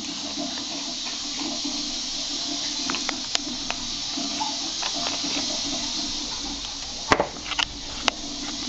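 A steady hiss throughout, with a few small clicks and taps from a plastic drain-cleaner bottle being opened, the loudest about seven seconds in.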